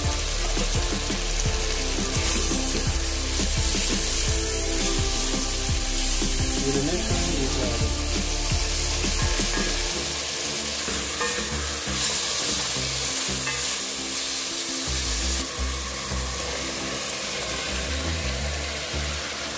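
Chopped onions and tomato sauce sizzling as they fry in oil in a nonstick pan, with a utensil clicking and scraping against the pan as it stirs, mostly in the first half.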